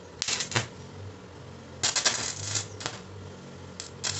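Stick (arc) welder crackling and sizzling in three short bursts as the electrode strikes an arc and lays tack welds on steel.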